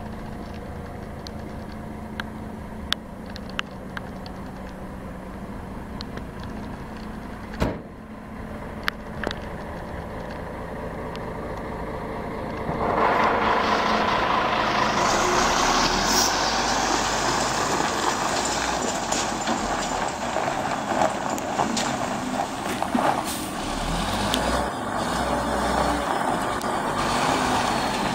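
M931A2 military semi tractor's six-cylinder Cummins diesel running steadily, with a few sharp clicks. About halfway through the sound becomes much louder and hissier and stays that way.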